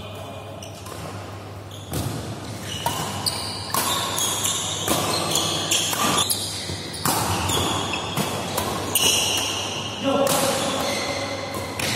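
Badminton rally in a large hall: a string of sharp racket strikes on the shuttlecock and quick footsteps, with short high shoe squeaks on the court mat and voices in the background. The hitting starts about two seconds in.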